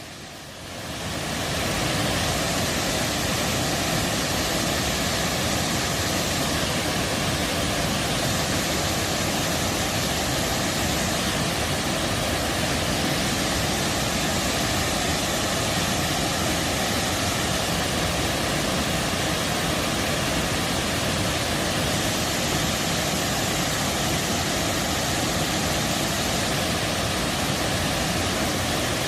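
Steady roar of a waterfall pouring into a deep pool, an even rushing noise of falling water that fades in over the first couple of seconds.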